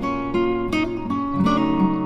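Background music: acoustic guitar plucked and strummed, with new notes struck about every half second.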